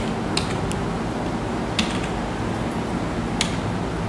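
A few short, sharp button or key clicks, spaced irregularly about a second or more apart, as a serial number is keyed in. Under them runs a steady low hum of background noise.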